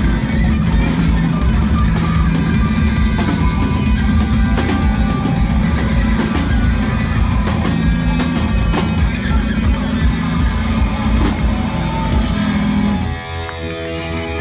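Rock band playing live at full volume: drum kit, distorted electric guitars and bass. About a second before the end the band breaks off and a held chord rings on.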